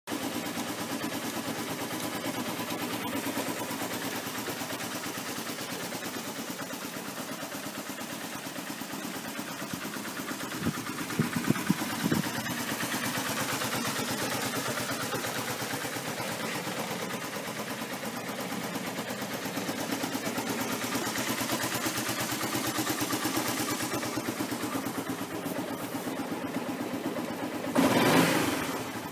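Yamaha Maxam 250 scooter's single-cylinder four-stroke engine idling steadily through its exhaust, with a few sharp knocks about halfway through. Near the end the throttle is blipped and the revs rise briefly.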